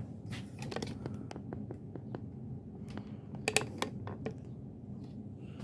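Homestead Universal ceiling fan running on low speed, with irregular crackling clicks over a steady low hum. This is the bearings' crumbling sound, which the owner thinks comes from dry top bearings that need oil.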